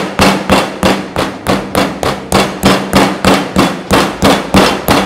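Metal meat mallet pounding a chicken breast flat through plastic wrap on a plastic cutting board: loud, steady blows, about three a second.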